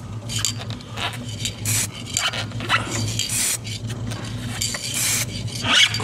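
Aerosol can of underbody wax sprayed in repeated short hissing bursts, some with a squeaky tone, over a steady low hum. The wax is going onto the suspension as rust protection.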